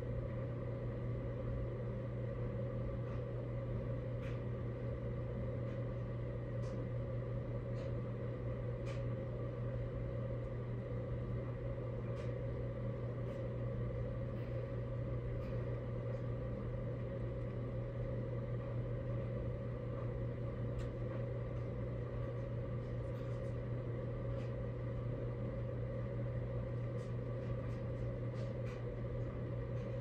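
Steady white-noise hum, a constant low drone with a few thin steady tones over it, with faint scattered clicks here and there.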